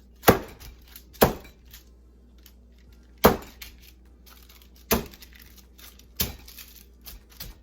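Sliced chicken breast under wax paper being flattened with single sharp blows, about six of them spaced one to two seconds apart, each hit followed by a pull to thin the meat.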